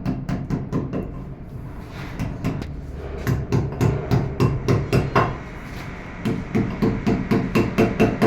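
Hammer blows in two quick runs of about four or five strikes a second, each lasting about two seconds, after a few sparser taps at the start.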